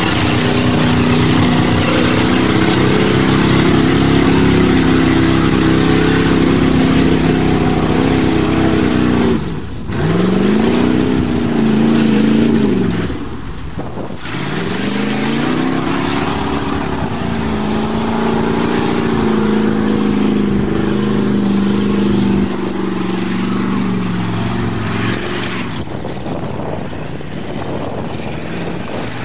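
Pickup truck's engine revving hard under load as it ploughs through mud and water, with a rushing wash of churned mud and spray over it. About ten seconds in, and again at about fourteen, the revs drop away sharply and climb back.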